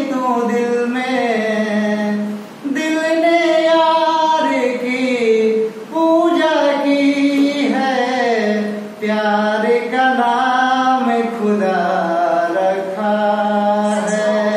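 A man singing a Hindi song unaccompanied, holding long, wavering notes in phrases separated by short pauses for breath.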